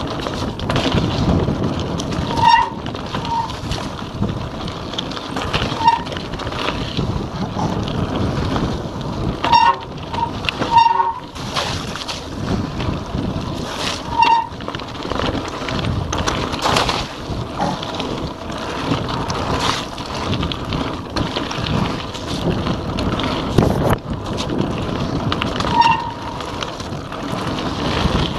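Cross-country mountain bike ridden fast over rough dirt and gravel singletrack: wind rushing over the microphone, tyres running on the trail and the bike rattling over bumps. Brief squeaks come now and then.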